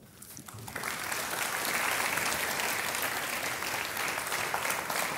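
Studio audience applauding, the clapping building up over about the first second and then holding steady.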